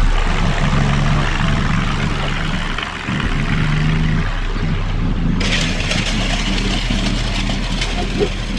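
Tractor engine running steadily, with its low hum rising and falling. A hissing noise joins about five seconds in.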